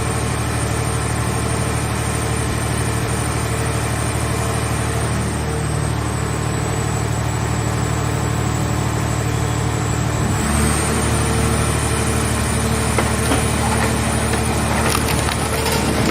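Power unit of a portable hydraulic car baler running steadily under load. About ten seconds in, its note shifts as the press works. Near the end there is crackling as the scrap car shell is crushed.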